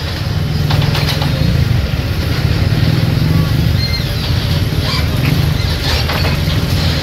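Excavator's diesel engine running loudly and steadily during demolition of a concrete and tile wall, with a few scattered knocks.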